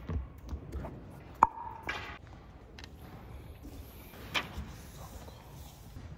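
An iPad mini and its folio case being handled and fitted together on a wooden table: soft taps and rustles, with one sharp click about a second and a half in and a smaller click a few seconds later.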